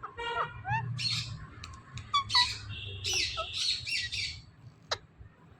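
Indian ringneck parakeet calling: a quick run of short rising chirps, then harsh screeches that stop about four and a half seconds in. A single sharp click follows near the end.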